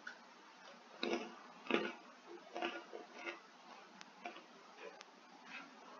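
Chewing of a crunchy hot puffed snack: a series of faint, irregular crunches, roughly one every half second to a second.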